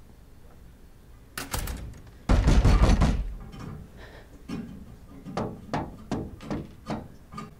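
A loud, heavy thud about two seconds in, then a string of sharp knocks on a window over the last three seconds, from a TV drama's soundtrack.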